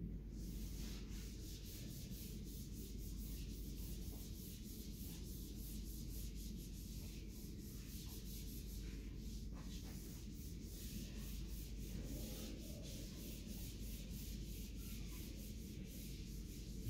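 Felt whiteboard eraser rubbing across a whiteboard in many quick back-and-forth strokes, faint and scratchy, wiping the board clean.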